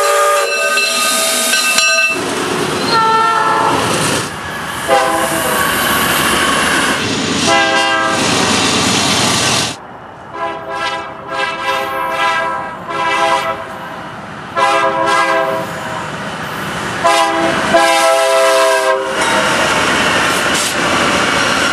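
Train whistling in a string of clips: a steam locomotive's whistle at the start, then repeated diesel locomotive horn blasts, some short and some long, over engine and rail noise. Near the end a freight train rumbles past close by.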